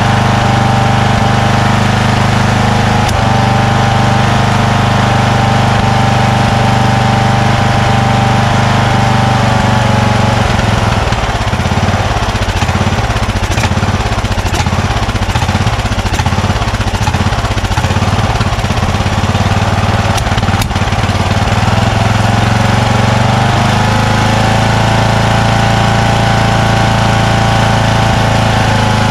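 Craftsman 20 hp lawn tractor engine running at a steady speed, then running rough and uneven, faltering and pulsing, for about twelve seconds in the middle while its carburetor is adjusted, before settling back to a smooth, slightly higher steady run.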